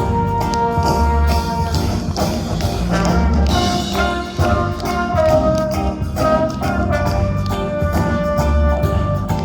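Live band playing an instrumental passage of a pop song, with brass holding sustained notes over bass and drums.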